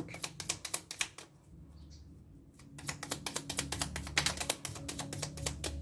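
A deck of reading cards being hand-shuffled: rapid papery clicks of card edges slapping together. They stop for about a second and a half, then resume in a denser run.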